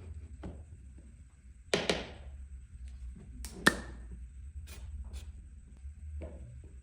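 Pieces of wood and hand tools being handled and set down: a few separate knocks and clicks, a double knock about two seconds in and the loudest, sharpest click near the middle, over a low steady hum.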